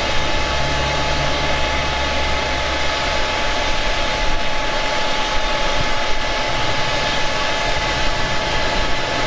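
Diesel-fired foundry furnace burner and blower running steadily: an even roar with a thin, constant whine through it.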